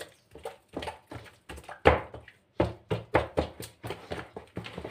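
Soft yeast dough being kneaded by hand in a plastic bowl: an irregular run of slaps and thumps, two or three a second, with the loudest about two seconds in.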